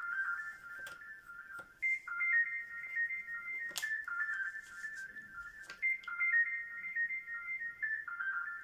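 Background music: a simple high melody of clean, beeping tones like a phone ringtone, its phrase repeating every few seconds. A few soft clicks sound over it.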